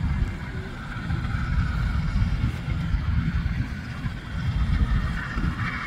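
Wind buffeting the microphone over a distant vehicle rumble from a steam locomotive approaching under power, with traffic on the nearby highway.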